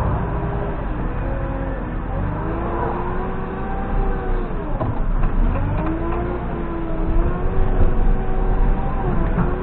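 JCB 3CX backhoe loader's diesel engine running with a deep rumble, its engine speed rising and falling repeatedly, with a marked drop and recovery about halfway through.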